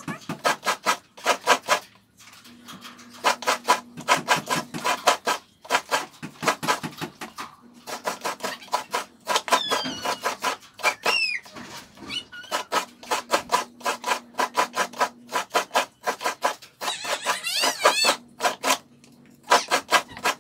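A mature coconut half being grated by hand on a coconut grater stool (kudkuran), its flesh scraped against the serrated blade in quick rasping strokes, about four or five a second, in runs with short breaks.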